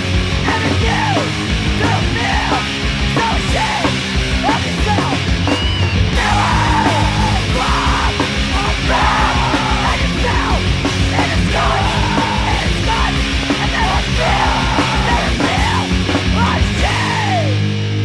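Punk rock recording: fast drums and distorted electric guitar under yelled vocals. Near the end the drums and voice stop, leaving distorted guitar ringing.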